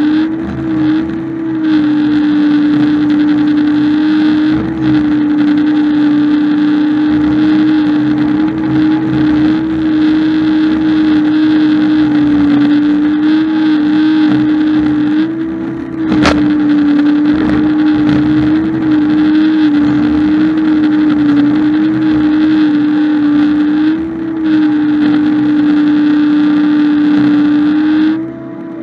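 A farm machine's engine running steadily under load, a strong even hum whose pitch lifts slightly for a moment a few times. There is one sharp click about sixteen seconds in.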